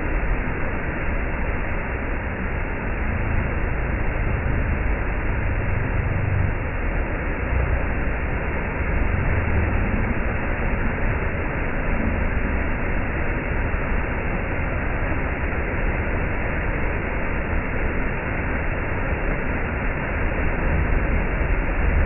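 Small waterfall pouring over rocks into a pool: a steady, deep rush of falling and splashing water.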